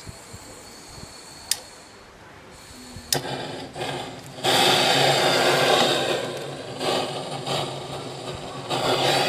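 Gas cartridge blowtorch: a sharp click about three seconds in, then the flame running with a loud, steady hiss from about four and a half seconds on. It dips slightly and comes back up near the end.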